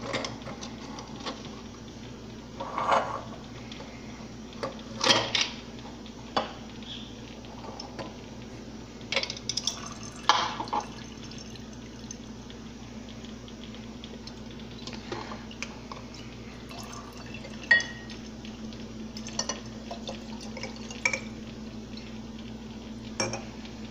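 Whisky distillate trickling from a home pot still's copper outlet into a glass graduated cylinder. Scattered glass clinks and knocks come as the alcoholmeter and cylinder are handled and the spirit is tipped into a glass jar. A steady low hum runs underneath.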